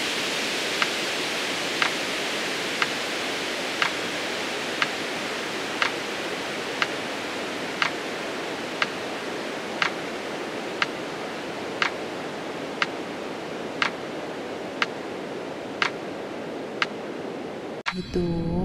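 Metronome ticking about once a second, pacing a slow 20-count exhale, over a steady rushing hiss that fades a little and cuts off near the end.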